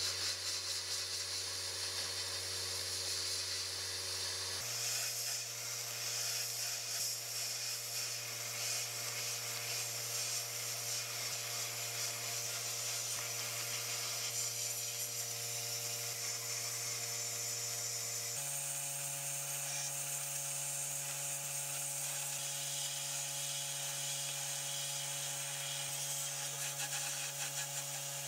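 Small power tool running steadily, a motor hum under a hissing, grinding high end; its pitch steps up twice.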